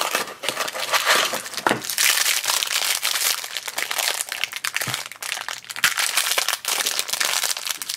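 Hands tearing open a small cardboard blind box and crinkling and ripping the shiny foil wrapper inside, an irregular run of crackles and rustles.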